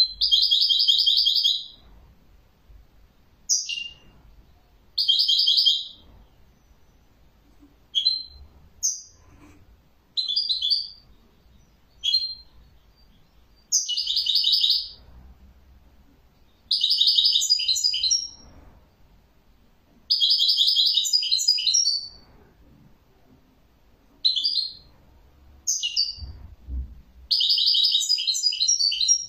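European goldfinch singing: about a dozen bursts of rapid, high-pitched twittering, each from a fraction of a second to about two seconds long, with short pauses between them.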